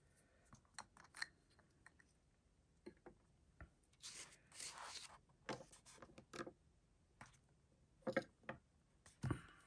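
Faint clicks, taps and a brief rustle of hands handling small objects on a paper notebook: a plastic ink sample vial being set down and a fountain pen being laid on the page.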